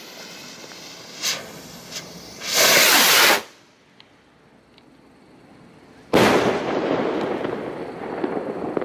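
Firework rocket launching with a loud whoosh lasting about a second, after a couple of small pops. About six seconds in it bursts with a sudden bang, and the noise of the burst tails off slowly.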